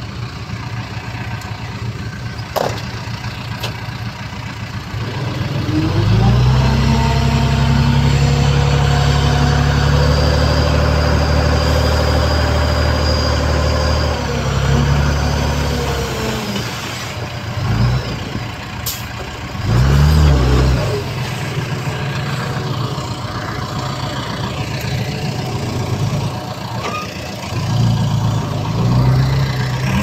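Heavy diesel engine of earthmoving machinery running. About six seconds in it revs up and holds a hard-working pitch for around eight seconds, then winds down. Shorter bursts of revving follow a few times, with an occasional sharp clank.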